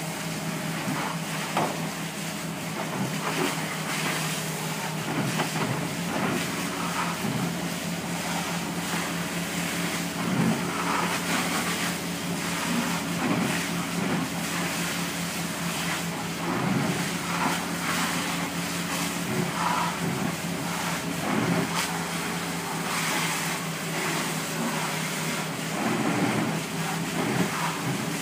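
A fire engine's diesel engine and pump running steadily at pump speed, a constant drone, under the hiss of a fire hose stream spraying water onto a smoking car.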